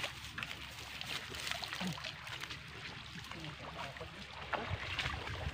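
Water splashing and trickling as a wet mesh fishing net is hauled out of shallow water, with irregular small splashes and drips.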